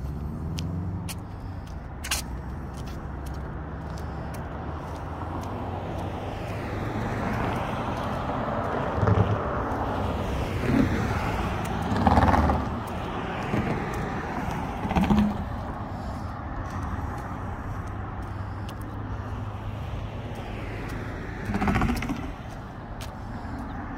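Street traffic on a busy road: several cars pass one after another between about 7 and 16 seconds in, their tyre noise swelling and fading, and another passes near the end. A low, steady engine hum runs beneath.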